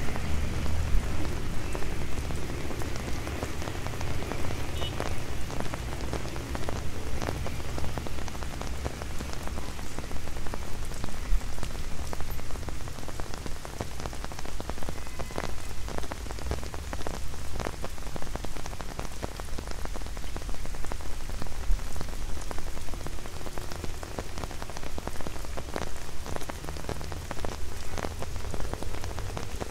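Rain on an umbrella overhead: many scattered drops tapping on the fabric in a steady wash, with a low rumble underneath.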